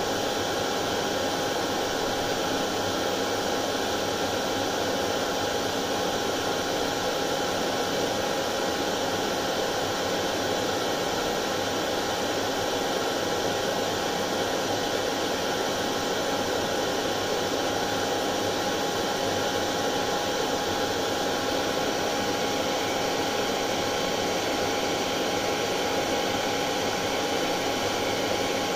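Hair dryer running steadily: an even whooshing rush of air with a constant motor hum.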